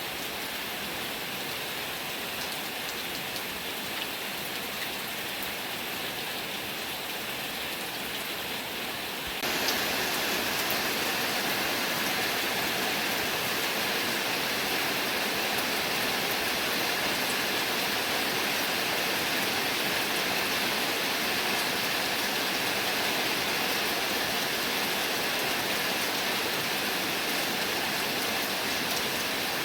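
Heavy rain falling as a steady, even hiss. About nine seconds in it jumps suddenly louder and brighter and keeps on at that level.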